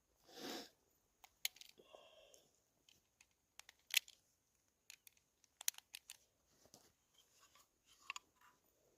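Scattered sharp clicks and light rustling handling noise, with a few louder snaps about four and six seconds in.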